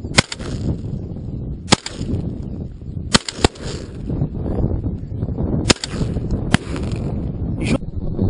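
Volley of shotgun shots at ducks: six sharp reports at irregular intervals, two of them in quick succession about three seconds in, and a fainter, more distant shot near the end, over low wind rumble on the microphone.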